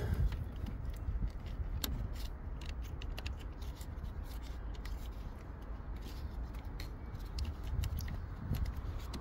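Irregular small metallic clicks of a wrench loosening the 10 mm nut on a car battery's negative terminal clamp, over a low steady rumble.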